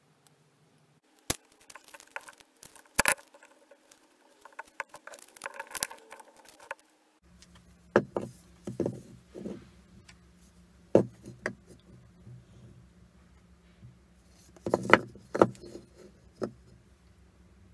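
Pine blocks being handled on a wooden workbench: irregular wooden knocks and clunks as the blocks are set down and pressed together, with a louder cluster of knocks near the end.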